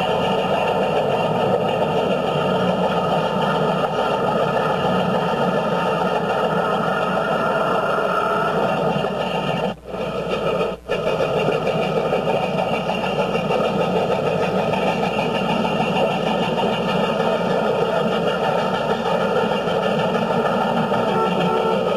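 Steady running noise of a moving road vehicle, with two brief dropouts in the sound about halfway through.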